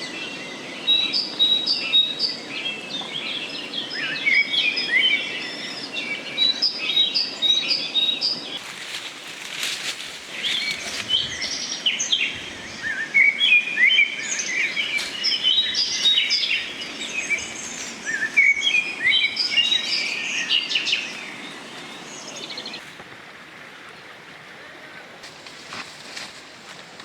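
Wild birds chirping and calling, with many short notes packed close together, some of them overlapping. A few sharp knocks come in the middle, and the birdsong falls away to a quiet background a little over 20 seconds in.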